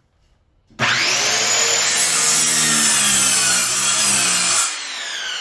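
Electric power saw starting up about a second in with a rising whine, cutting through wooden floor decking for about four seconds, then released and winding down with a falling whine. The blade is dull.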